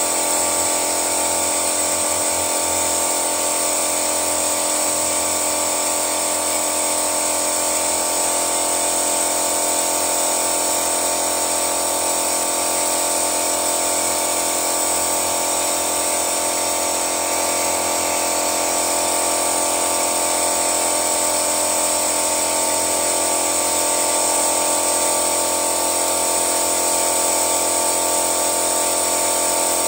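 Toyota Yaris engine running at a steady speed during an engine flush: a constant mechanical drone with a high whine on top that does not change.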